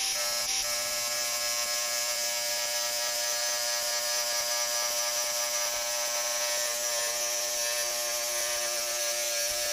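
Bosch GWX 18V-15 SC cordless angle grinder with a multimaterial cutting disc, cutting through 10 mm ribbed steel rebar: a steady whine over a hiss. It is running on a nearly drained battery.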